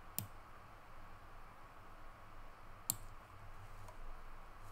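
Two sharp clicks of computer controls being worked, about three seconds apart, over a faint low hum.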